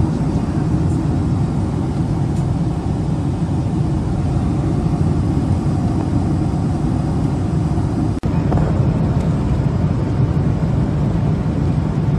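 Steady, loud low rumble of a Boeing 767 airliner cabin in flight: engine and airflow noise. It breaks off for an instant about eight seconds in.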